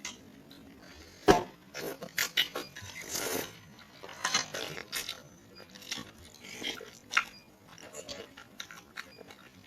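Close-miked eating of meatball noodle soup: irregular chewing and biting sounds, with a sharp click a little over a second in.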